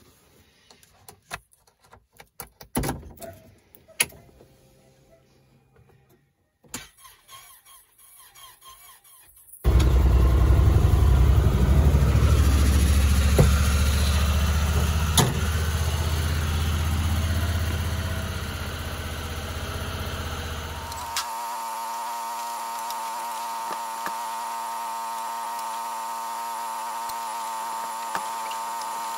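Honda UTV engine started in sub-zero cold. After a few clicks it fires abruptly about ten seconds in and runs loud and low, then settles to a steady, even idle hum.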